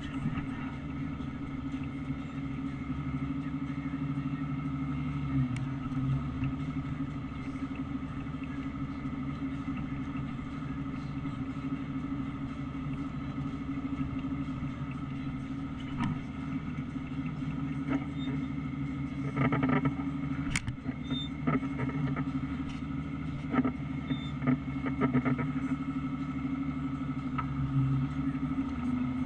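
Tractor engine running steadily under load, heard from inside the cab while it tows a forage harvester. A run of knocks and rattles comes about two-thirds of the way through.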